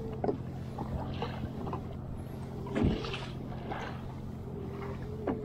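Water sloshing against a fishing kayak, with a few sharp knocks on the hull over a steady low hum.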